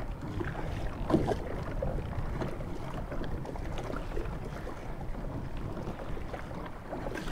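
Choppy wind-driven waves slapping and splashing against a kayak, with wind buffeting the microphone as a steady low rumble; one louder slap about a second in.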